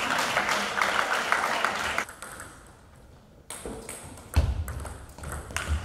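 Table tennis rally: the plastic ball pinging sharply off the bats and the table, with low thuds from about four and a half seconds in. It follows about two seconds of hall noise of voices and clapping that cuts off suddenly.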